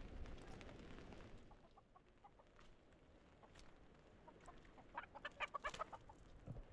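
Chicken clucking: a few faint clucks, then a quick run of louder clucks about five seconds in.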